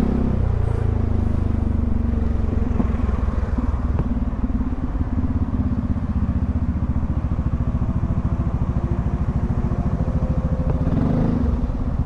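Yamaha XMAX 300 scooter's single-cylinder engine running steadily while riding along the road.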